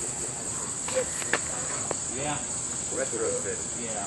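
Steady high-pitched insect chorus, with a few sharp clicks in the first two seconds and faint voices in the background.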